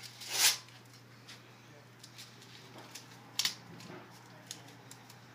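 Handling noises: a short scraping rustle about half a second in and a sharp click about three and a half seconds in, over a steady low hum.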